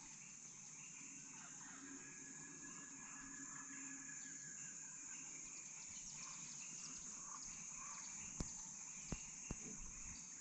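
Faint forest ambience: a steady high-pitched insect drone with scattered bird calls, and a few short knocks near the end.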